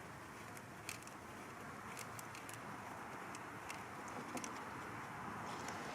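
Light, scattered clicks and ticks of small hardware being handled while a motorcycle turn signal is twisted onto its mount, over a faint steady background rumble.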